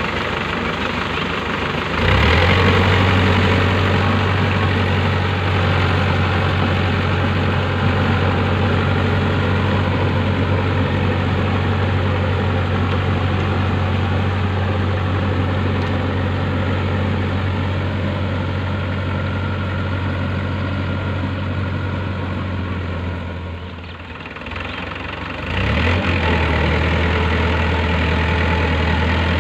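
Powertrac Euro 55 tractor's diesel engine running steadily under load as it drives a rotavator through wet paddy mud. The sound steps up about two seconds in and dips briefly near the end before coming back.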